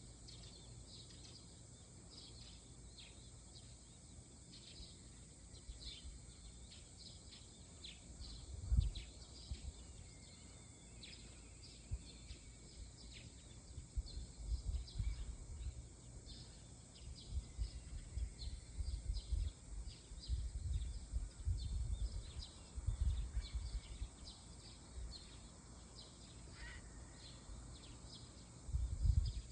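Small birds chirping with many short, high calls in a quiet outdoor morning ambience, with bursts of low rumble now and then.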